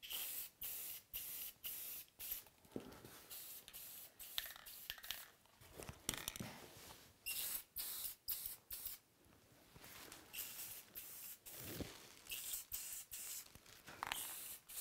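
Aerosol spray-paint can hissing in many short bursts, each a fraction of a second long, with brief pauses between, as black paint goes onto a steel shifter lever.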